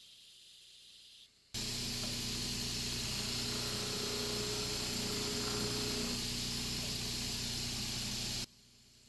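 Power grinder running steadily, its abrasive hissing against the steel as it grinds a light edge bevel on a small forged knife. It starts abruptly about a second and a half in and cuts off abruptly near the end.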